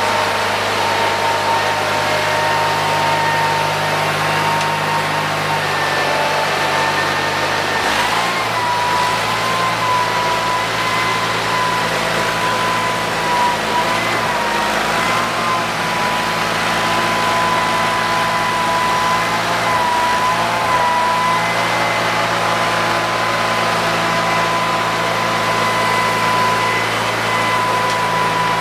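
Garden tractor engine running steadily, with a high whine above it that wavers slightly. The engine note shifts about eight seconds in and dips briefly a few times afterwards.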